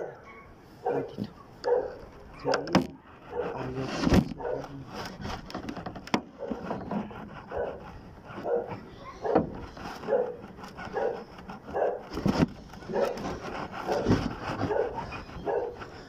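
A dog barking over and over, roughly one bark a second.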